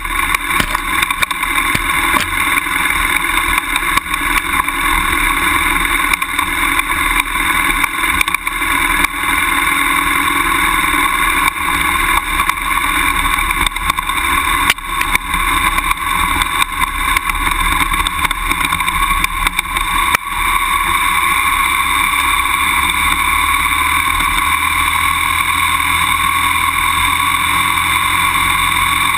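BMW F800GS motorcycle's parallel-twin engine running as it rides a rough dirt trail, with frequent knocks and rattles over the uneven ground; from about twenty seconds in the sound runs smoother and steadier.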